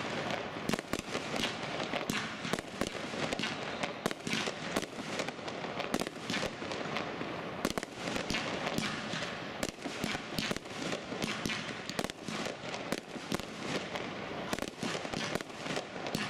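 Aerial fireworks fired in quick succession: a dense, irregular string of sharp bangs and pops, several a second, with no let-up.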